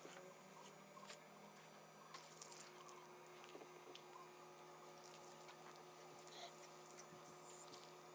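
Near silence: a steady electrical hum with a few faint scattered taps and clicks.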